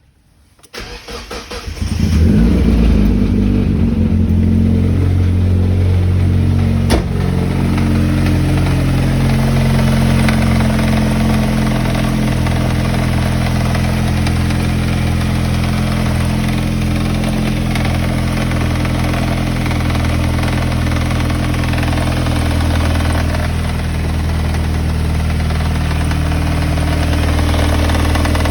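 Mazda MX-5 NB four-cylinder engine cranking and catching about two seconds in, then idling steadily with an abnormal noise that the owner suspects is a spun big-end bearing or a bad timing belt tensioner. A single sharp click sounds about seven seconds in.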